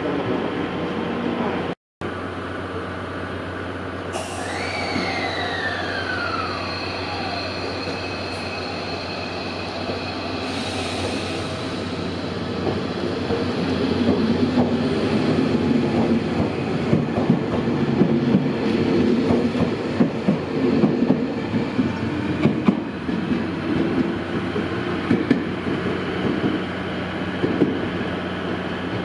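Tobu Revaty limited express electric train pulling slowly into the platform: a whine falls in pitch over a few seconds as it brakes, followed by wheels rumbling and clacking over the rails with brief squeals.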